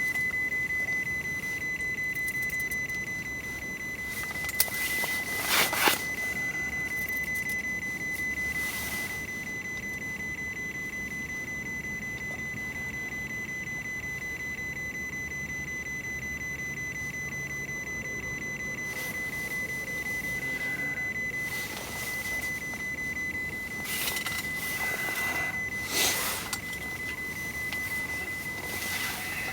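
A steady high-pitched electronic tone, with a few brief knocks or rustles over it.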